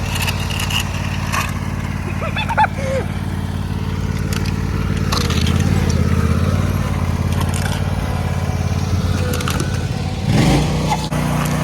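An engine running steadily, growing louder about five seconds in and changing pitch near the end, with a few sharp knocks and clatters over it.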